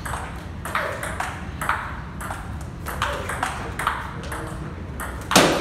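Table tennis rally: the ball clicking in turn off the bats and the table, about two hits a second, with a louder short burst of noise near the end.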